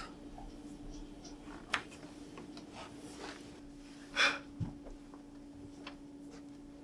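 Quiet stage room tone with a steady low hum, a few faint clicks, and a short, sharp breath or sniff about four seconds in.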